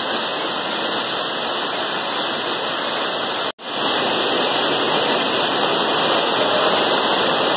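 Waterfall pouring down a cleft in a rock cliff: a steady rush of water that drops out for an instant about halfway through, then carries on slightly louder.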